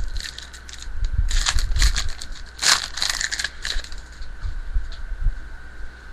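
Crinkling and crackling of a baseball card pack's foil wrapper and the cards inside being handled, in irregular clusters of crackles.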